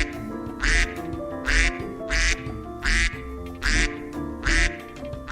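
Duck quacking sound effect, a quack about every three quarters of a second, over light background music.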